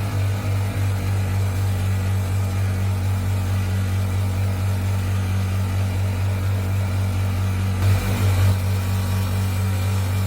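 A power tool's electric motor running steadily with a low, even hum, briefly louder about eight seconds in.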